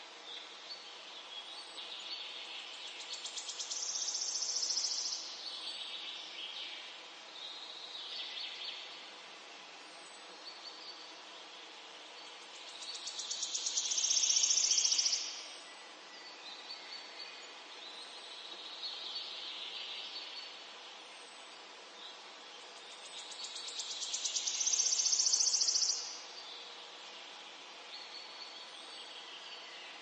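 Outdoor nature ambience: a high, buzzing animal trill that swells over two or three seconds and cuts off abruptly, repeating three times about ten seconds apart, with softer chirps in between over a faint steady hiss.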